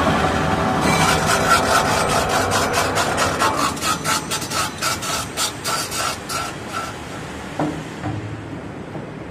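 CNC metal spinning machine's spindle and spun pot winding down after forming. A rhythmic rubbing scrape spaces out to about three strokes a second and fades as the rotation slows, then a single knock comes near the end.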